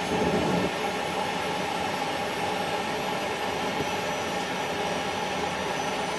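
Steady rushing noise with a faint steady hum under it, from a wok of clams cooking on a stovetop.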